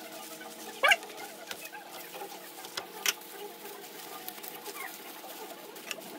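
A short pitched animal call about a second in, bird-like, over a faint steady hum, with a few faint clicks later on.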